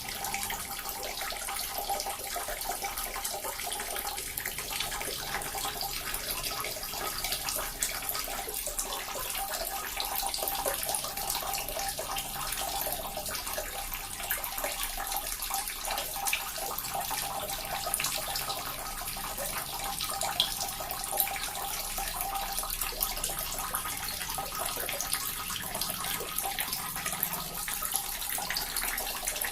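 Small water fountain running continuously: a steady trickle and splash of falling water, full of fine droplet spatters.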